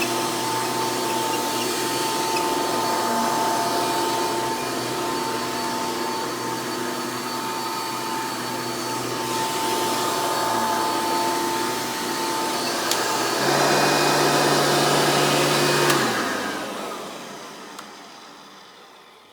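Hoover Elite direct-air upright vacuum running steadily with a motor whine. The sound changes about two-thirds of the way through, then the machine is switched off and the motor winds down over a few seconds.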